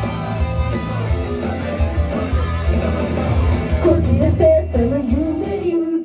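Idol pop song with a guitar-and-drums backing track played loud, a girl's singing voice coming in strongly in the second half.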